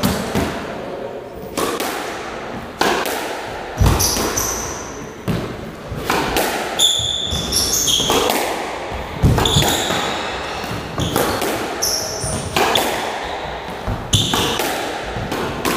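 Squash rally: the ball cracking off rackets and walls about once a second, each hit echoing around the court, with shoes squeaking sharply on the wooden floor several times.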